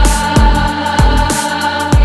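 Background music with a steady kick-drum beat about twice a second, ticking hi-hats and a held high note over it.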